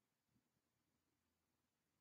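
Near silence: only a faint noise floor.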